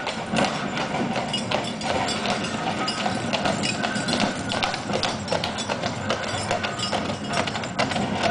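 Hooves of a pair of draught horses clip-clopping on paved track as they pull a horse-drawn tram closer, a steady run of hoof strikes.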